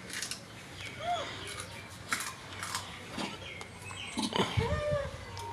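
A monkey biting and chewing hard food, with irregular crunching clicks. A few short squeaky sounds rise and fall in pitch, about a second in and again near the end.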